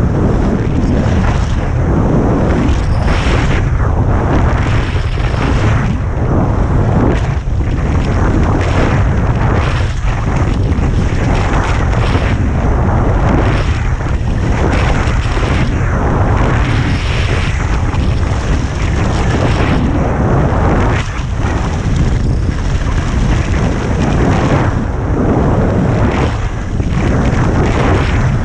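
Heavy wind buffeting on the microphone of a skier's camera during a fast descent, a constant low rumble. Over it, skis scrape and hiss on firm groomed snow in surges about every second or so as the skier turns.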